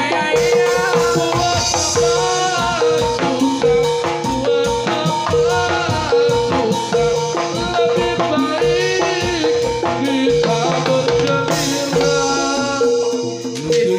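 Amplified Javanese gamelan music for a jathilan horse dance: drums keep a busy beat under sustained metallophone notes and a bending melody line.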